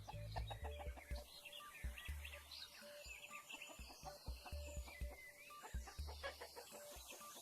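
Chickens clucking and chirping over background music with a low beat.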